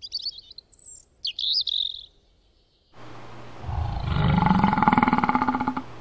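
Two short runs of high, bird-like chirping, then after a second of near silence a loud roar that builds up and rises in pitch, the loudest sound here.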